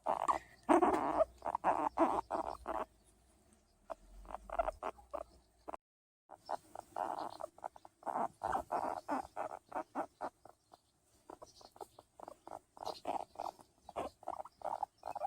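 Skinny guinea pig giving quick runs of short, soft calls while being patted, several a second, with a brief pause about six seconds in; the sounds of a content guinea pig enjoying the patting.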